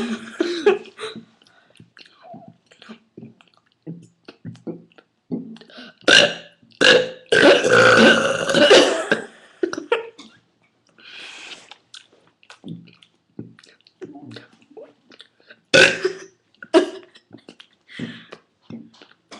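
Deliberate, forced human burps: a run of short ones, a loud burp about six seconds in, then a long drawn-out burp lasting about two seconds, and another loud, sharp burp near sixteen seconds.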